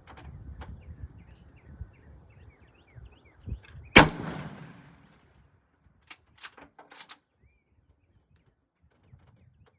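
A single shot from a Mosin-Nagant M91/30 rifle firing steel-cased 7.62x54R ammunition, about four seconds in, ringing out for about a second. A couple of seconds later come four short, sharp clicks.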